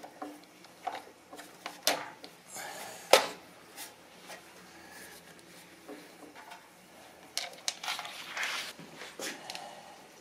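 Scattered clicks and knocks of a metal T-handle driver and hands working on the plastic air filter box and carburetor of a small single-cylinder engine, with one sharp knock about three seconds in.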